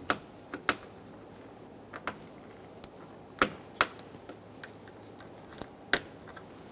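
Plastic wiring-harness clips snapping out of a pickup truck's inner door panel as they are pried loose with a plastic trim tool: a series of sharp, irregularly spaced clicks, the loudest a little past the middle and near the end.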